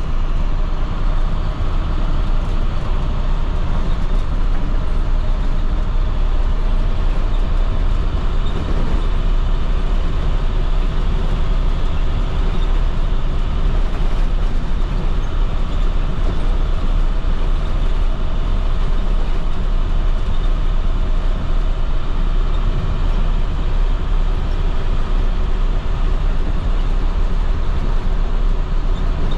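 2010 IC FE school bus with its MaxxForce DT inline-six turbodiesel running at a steady cruise, with road noise; pitch and loudness stay even throughout.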